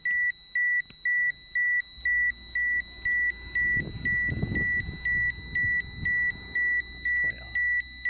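Terra-P radiation dosimeter sounding its dose-rate alarm: a short, high, even beep repeating about twice a second, the sign of a radiation level above its alarm threshold. A low rumble comes in about four seconds in.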